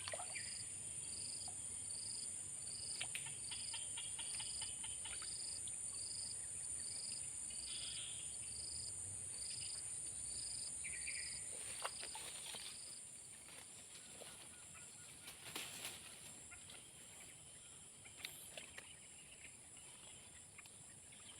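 Outdoor insect chorus: a steady high-pitched drone, with a shrill chirp repeating a little over once a second that stops about two-thirds of the way through. Scattered bird calls are heard over it, and there are a few faint clicks near the end.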